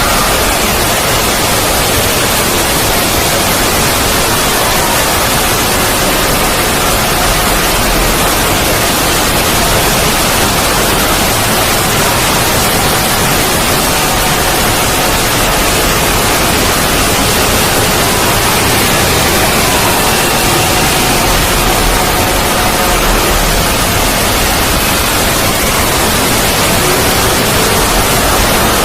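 Loud, steady static-like noise filling the whole range, with faint tones underneath that slowly drift and glide in pitch: a 'void' ambience sound effect.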